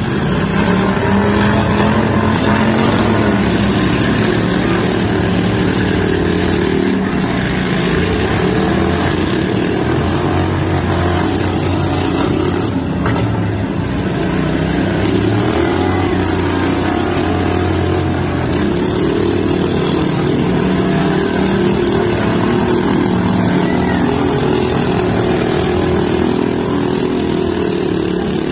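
Several lawn tractor engines running and revving together in a loud, continuous din as the tractors push against one another.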